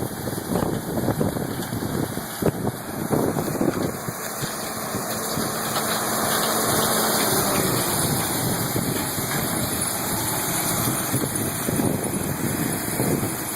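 Combine harvester picking corn, its engine running steadily, with uneven low rumbling.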